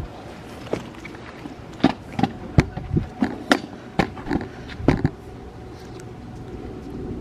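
Handling noise: about ten irregular light clicks and knocks over four seconds, then a steady low background rumble near the end.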